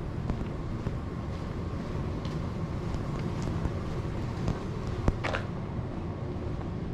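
Outdoor street ambience: a steady low rumble of wind and distant traffic, with a sharp click a little after five seconds in and a brief higher squeak right after it.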